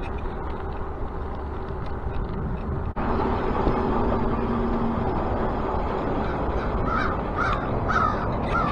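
Steady wind and road noise from a moving bicycle. Near the end, a bird calls four times, about two calls a second.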